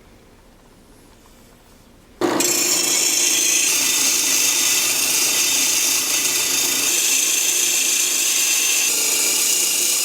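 After about two seconds of quiet, a power tool working purpleheart wood starts abruptly and runs steadily at a high, hissing pitch.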